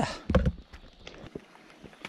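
A hiker's footsteps on a rocky trail: one heavy step onto stones about half a second in, then fainter crunches and scuffs of boots on loose gravel and rock.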